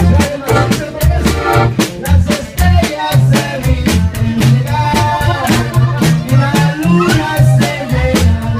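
Live norteño-style band playing: a button accordion carries the melody over an upright bass's pulsing low notes and a steady drum beat.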